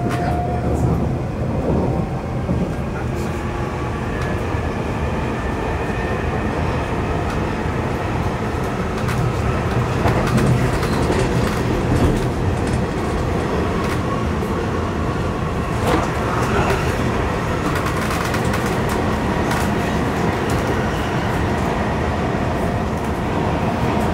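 Stockholm metro train running, heard from inside the carriage: a steady rumble from the wheels and running gear, with a few sharp knocks along the way, the clearest about twelve and sixteen seconds in.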